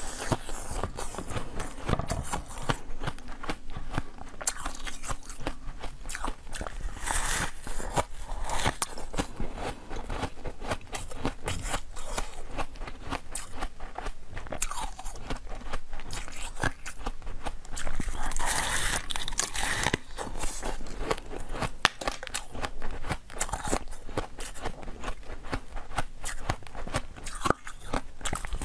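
Close-miked biting and crunching of a frozen block of basil-seed ice, with dense crackling bites and chewing throughout.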